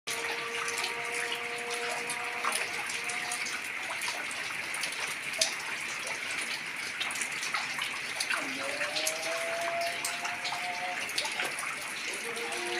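Steady heavy rain with water running and splashing, and many sharp drip clicks scattered through it. A faint steady droning tone sits underneath, rising slightly in pitch about eight seconds in.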